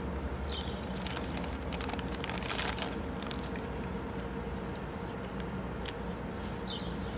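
Plastic bag of bolt hardware rustling, with faint scattered clinks of metal washers and nuts being picked out, over a steady low hum.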